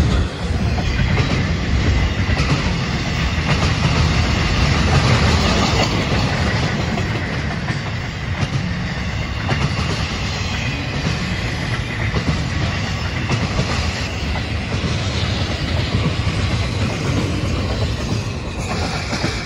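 Freight train's loaded intermodal container cars rolling past at close range, steel wheels running steadily over the rails. The sound begins to fall away near the end as the last car goes by.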